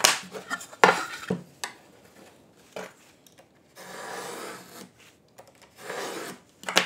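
A few wooden knocks and taps, then a utility knife blade drawn twice along a cherry board, each stroke a soft scrape, scoring a line for a dovetail joint, with a sharp click near the end.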